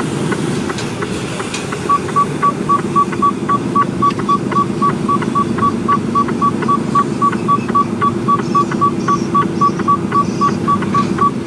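Mercedes Actros truck's diesel engine idling in the cab, joined about two seconds in by a short high electronic beep repeating steadily about three times a second.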